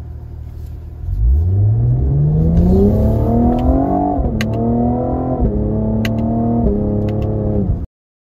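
Cadillac CT5-V's twin-turbo V6 accelerating hard under paddle-shifted upshifts: the engine note climbs from about a second in, then drops in pitch three times as the gears change, with sharp exhaust pops around the shifts, the back-pressure release between gear changes. The sound cuts off abruptly near the end.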